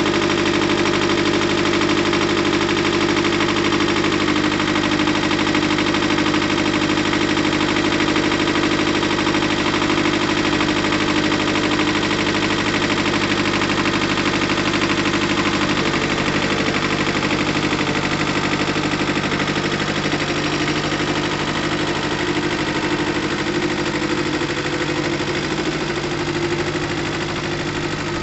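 Mitsubishi MT372 compact tractor's two-cylinder diesel engine running steadily at a low idle. In the last few seconds the note shifts and grows a little quieter as the tractor drives down off the trailer.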